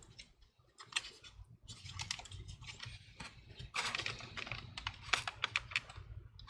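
Light plastic clicks and rattles from the HP 17 laptop's cracked palmrest casing and broken hinge mounts being handled. Scattered at first, busier from about four seconds in.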